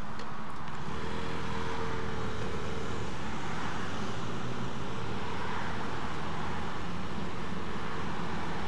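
Motor scooter riding along a road, its engine running at a steady pitch under a constant rush of wind and road noise.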